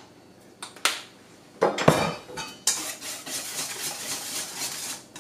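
Wire whisk stirring wet pancake batter in a stainless steel bowl, clinking and scraping against the metal: a few separate knocks, then rapid steady whisking from a little under three seconds in.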